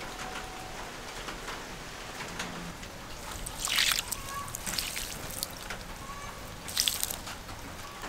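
Water poured onto the flat, freshly sawn face of a pine log, splashing and trickling over the wood. It comes in short pours, the strongest about halfway through and another near the end.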